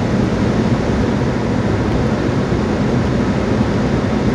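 Steady road and tyre noise heard inside the cabin of a moving car at highway speed, a low, even rumble with no breaks.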